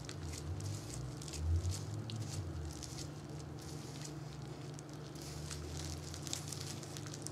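Pink plastic wide-tooth comb drawn through damp, dye-coated hair, with gloved hands handling the strands: a run of short, soft, irregular crackles over a steady low hum.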